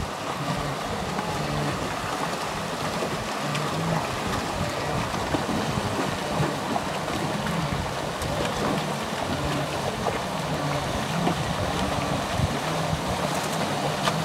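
A large herd of blue wildebeest grunting and lowing together in a continuous din, with movement through shallow muddy water.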